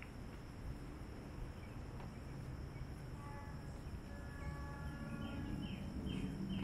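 Outdoor ambience: a steady high insect buzz over a low rumble. Bird notes come in about halfway through, and a run of short falling chirps follows near the end.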